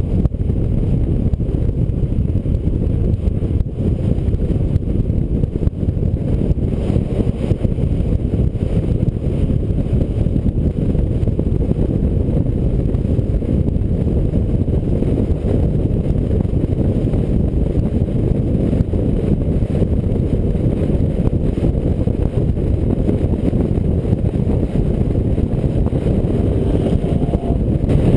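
Steady low rumble of wind and road noise on a roof-mounted GoPro on a car cruising at highway speed, with no clear engine note standing out.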